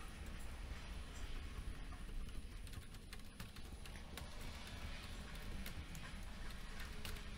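Faint, scattered clicks and taps of LEGO Technic plastic parts being handled, over a low steady hum.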